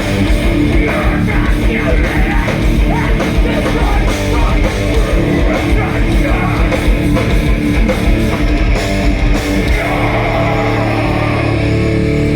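Metalcore band playing live at full volume: distorted electric guitars over drums. About ten seconds in, the drums stop and a held guitar chord rings on.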